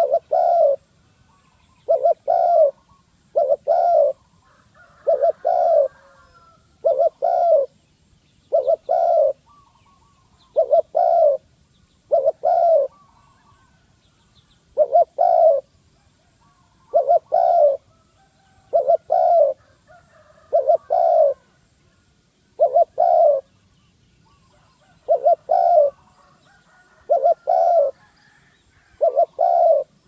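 Spotted dove cooing: a low two-part coo repeated about every two seconds, with one longer pause midway.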